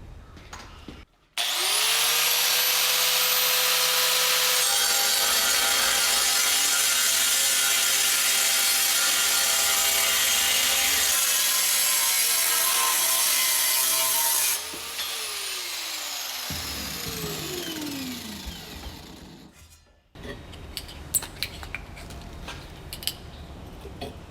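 An electric metal-cutting power tool spins up with a rising whine and cuts through metal stock for about thirteen seconds. It is then switched off and whines down to a stop, followed by faint clicks of handling.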